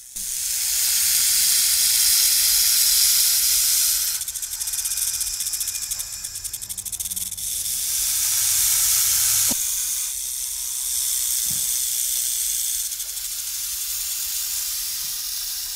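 Snake hissing: long, loud hisses that swell and ease over several seconds, with a short click partway through.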